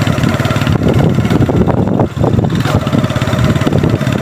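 Motorcycle engine running at a steady road speed, heard from on the moving bike, its rapid firing pulses continuous, with a brief drop in level about two seconds in.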